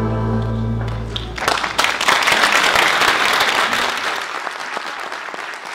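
Audience applause breaking out as the final held chord of the music ends about a second and a half in; the clapping then slowly fades.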